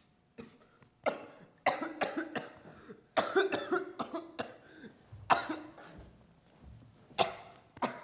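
A young man's acted coughing fit, portraying a sick child: a run of harsh coughs, many in quick succession in the first half, then two more spaced apart near the end.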